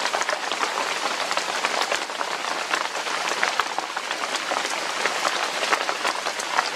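Steady rain falling: a dense, even hiss made of countless separate drop hits close to the microphone.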